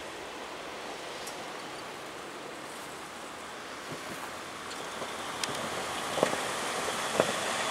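Pickup truck driving over the railroad crossing, its tyre noise growing louder toward the end over a steady rushing background, with a couple of short thumps as its wheels cross the rails.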